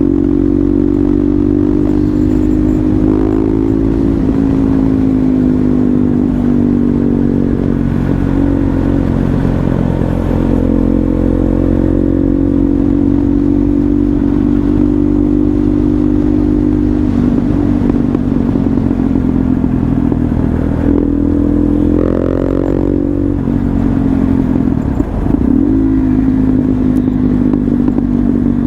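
A KTM Duke 390's single-cylinder engine running, its revs climbing and falling several times, with a short drop in revs and loudness about three-quarters of the way through.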